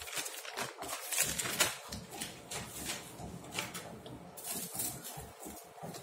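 Plastic courier mailer bag crinkling and rustling as it is handled, with louder rustles about a second in and again about four and a half seconds in.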